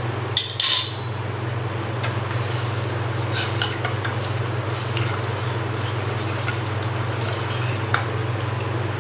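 Metal spoon stirring milk in a metal saucepan, with a few clinks and scrapes against the pot, over a steady low hum.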